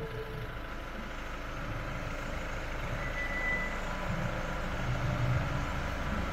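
Volkswagen Caddy van's engine idling: a steady low rumble that slowly grows louder.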